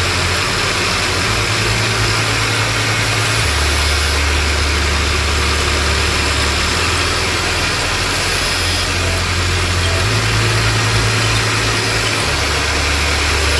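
Background music carried by deep held bass notes that change pitch every second or two, over a steady hiss.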